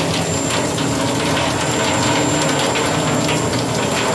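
Rainwater leaking through a shop roof and falling in drips and thin streams into open steel drums that hold water, a steady, dense pattering full of rapid ticks.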